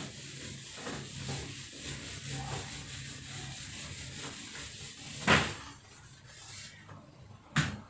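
Whiteboard eraser rubbing across a whiteboard in repeated wiping strokes. Two sharp knocks come about five seconds in and again near the end.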